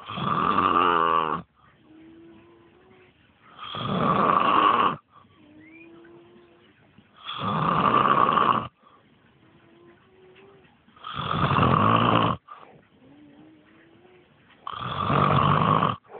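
A man snoring heavily: five loud snores, one about every three and a half to four seconds, with much quieter breathing between them.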